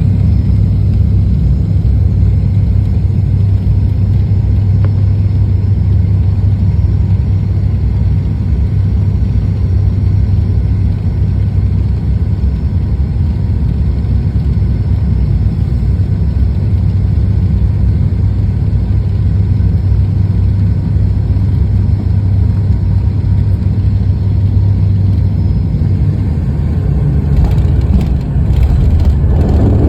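Steady loud rumble of engine and airflow noise inside an airliner cabin during landing. Near the end the sound grows louder, with a brief clatter.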